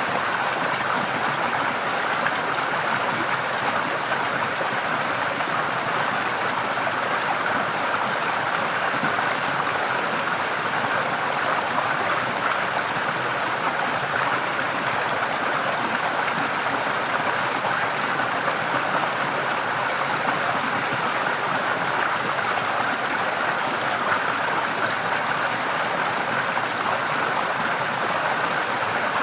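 A forest stream running, a steady even rush of flowing water.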